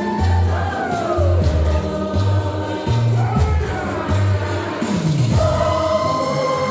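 Music: a choir of voices singing over a bass note that pulses about once a second.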